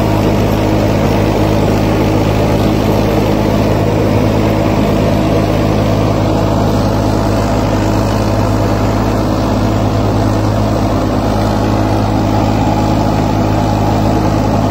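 Farmtrac tractor's diesel engine running steadily under load while driving an 8-foot, 54-blade rotavator through soil. The engine holds an even pitch and does not bog down under the rotavator's load.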